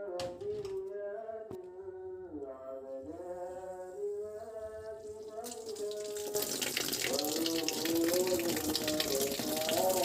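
Water starts rushing from a tap through a hose about six seconds in, running steadily after that. A held, melody-like tone that slides slowly up and down in pitch sounds throughout.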